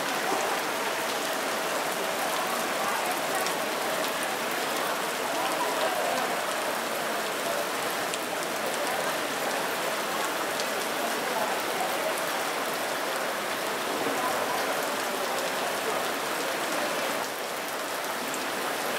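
Shallow stream running and splashing over rocks, a steady rushing water sound that dips slightly near the end.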